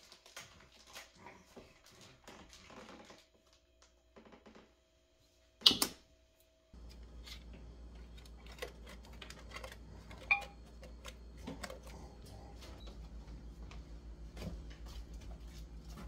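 A squeeze bottle of chocolate syrup squirting and sputtering, then a single sharp click. After that a thin clear plastic lid crinkles and clicks as it is pressed onto a foil pie tin, over a steady low hum.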